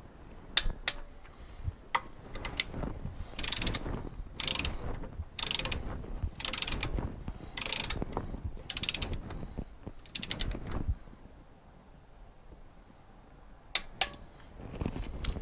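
Ratcheting torque wrench being swung back and forth in short strokes, about seven ratchet bursts roughly a second apart, as bolts are run down to torque spec on the 3.5L V6. A few sharp metal clicks come before the ratcheting and two more near the end.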